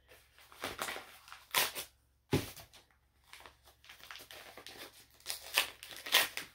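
Packaging being handled and unwrapped, crinkling and rustling in short sharp bursts. The loudest comes about two seconds in, and a quick run of them comes near the end.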